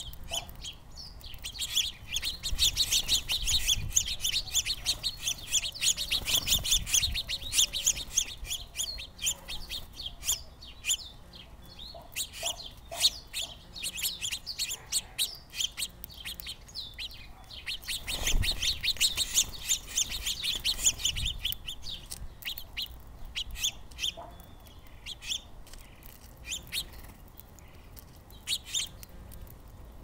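House finches chirping in fast bursts, busiest in the first several seconds and again around eighteen to twenty seconds in, with scattered chirps between.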